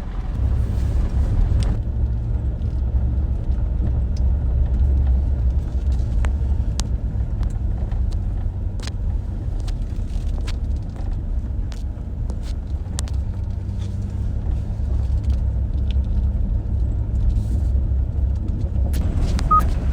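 Car driving along a forest road: a steady low rumble with scattered small clicks and knocks.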